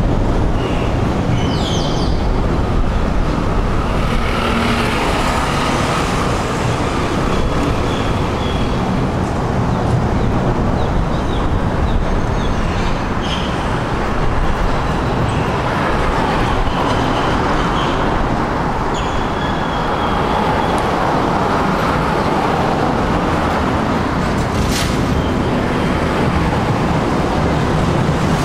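Steady road-traffic noise, a constant rumble and hiss, with a few faint, short high-pitched calls over it now and then.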